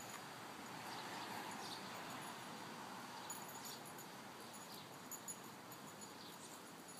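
Two puppies digging in dirt: faint scratching and scraping of paws and snouts in soil, with scattered small clicks of stones and roots.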